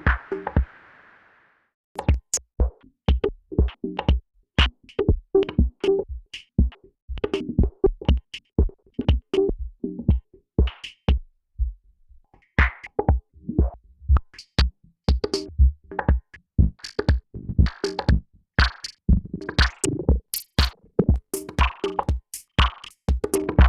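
Electronic music demo: a drum-machine loop with a deep kick and short synthesizer hits at a steady beat. It stops just after the start and comes back in about two seconds later.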